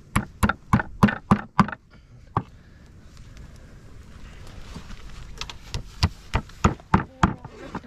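Nails being hammered into a wooden cooking plank with the back of a hatchet, pinning a trout to the board: sharp knocks about three a second, a run of six, then one more. After a pause the hammering starts again in another steady run near the end.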